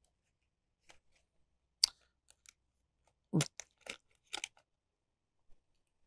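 Plastic clamshell blister pack and its card being handled and turned over: a scattering of short crackles and taps at irregular intervals, the loudest a little past halfway.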